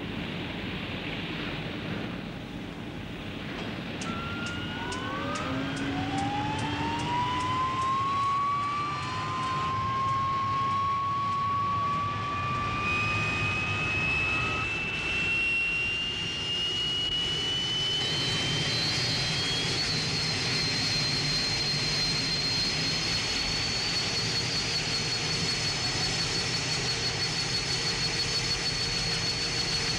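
Westland Wasp helicopter's turboshaft engine starting up: a whine rises in pitch over several seconds, then settles into a steady high whine at running speed, over a steady rush of engine and rotor noise.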